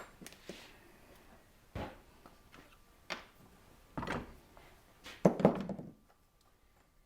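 Wood chisel cutting a recess for a hex nut into a wooden knob: several short scrapes and knocks about a second apart, the loudest a little past five seconds in.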